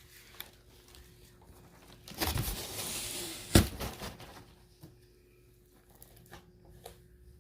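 Box cutter and hands working through a cardboard box: a rasping cut or tear about two seconds in, ending in a sharp snap, then scattered small clicks and rustles.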